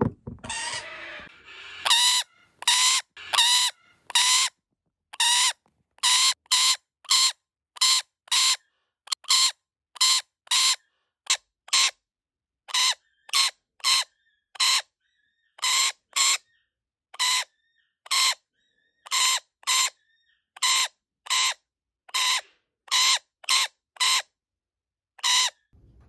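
Rainbow lorikeet with a broken lower beak screeching in distress: about forty short, harsh shrieks in a row, one or two a second.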